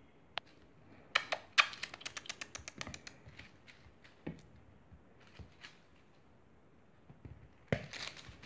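Bengal kitten's claws and paws skittering on a hardwood floor during play: a fast run of sharp clicks and taps about a second in, scattered single taps after, and another short cluster near the end.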